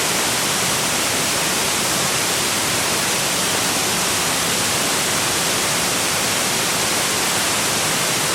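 Waterfall rushing: a steady, loud hiss of falling water with no change throughout.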